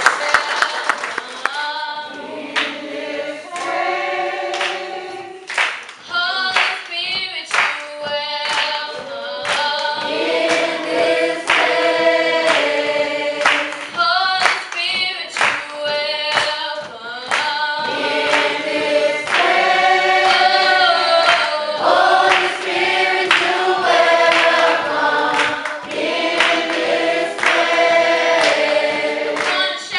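Brief applause fades in the first second, then a choir of voices sings a gospel song in harmony, with claps here and there.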